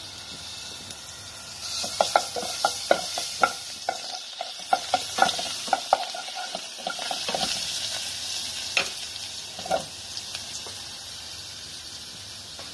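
Minced garlic sizzling in hot oil in a saucepan while a wooden spatula stirs it. The spatula knocks against the pan in a quick run of taps from about two to six seconds in, then twice more a few seconds later.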